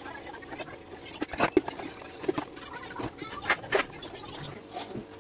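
A run of irregular sharp clicks and light knocks, a few of them louder, about one and a half and three and a half seconds in.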